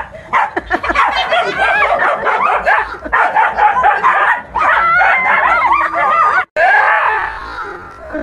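Dogs barking rapidly and excitedly at a stuffed tiger toy swinging on a string. The sound cuts out suddenly for a moment about six and a half seconds in.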